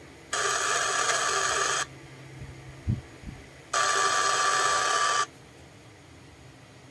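GREATNICE GTS-1346 portable Bluetooth speaker playing two ringing bursts, each about a second and a half long, like a telephone ring, with two short low knocks in the gap between them.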